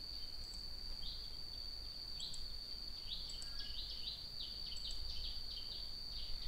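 Quiet background noise: a low hum under a steady high-pitched whine, with short chirps coming irregularly, several a second in places.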